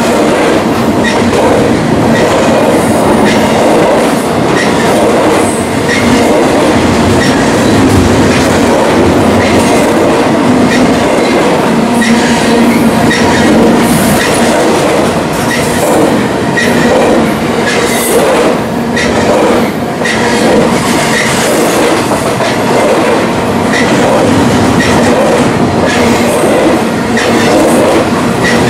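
BNSF intermodal freight train rolling past at track speed: a steady, loud rumble of wheels on rail with a regular clicking of wheels as the cars go by.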